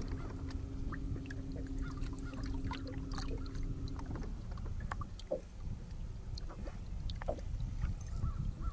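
Sounds aboard a fishing boat: a steady low hum that cuts off about four seconds in, over a continuous low rumble, with scattered light clicks and knocks.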